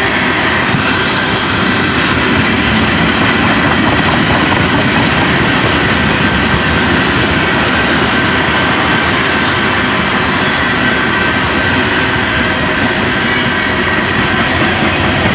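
Freight cars of a long CSX freight train rolling past, a steady loud rumble and rattle of steel wheels on rail, with a faint high steady whine above it.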